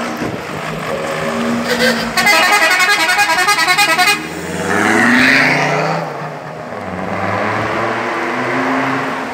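Remote-controlled horn built into a Volkswagen Crafter van's exhaust, sounding a fast pulsing warble for about two seconds in the middle. Around it are other horn tones and the van's engine running as it passes.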